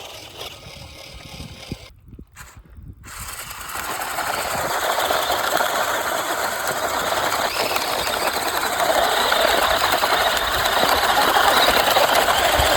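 Radio-controlled car running hard, a loud, rough mechanical rattle and whir that builds up about three seconds in and then holds steady.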